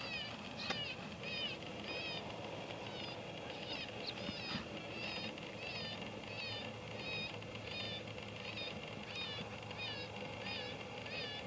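Electronic predator caller playing a looped animal distress call: short, identical high-pitched cries repeating evenly about twice a second to draw coyotes in.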